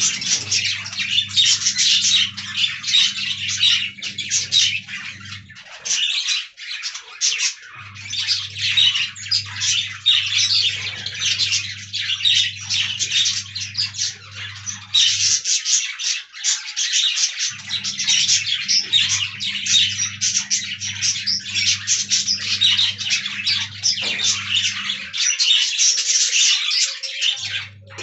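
A flock of budgerigars chattering and chirping continuously, many fast overlapping warbles and squawks. A steady low hum runs underneath and drops out for a second or two three times.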